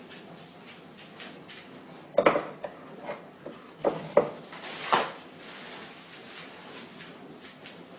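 A handful of short, sharp knocks and clatters, about six over three seconds, the last one a longer hissing burst, over faint room noise.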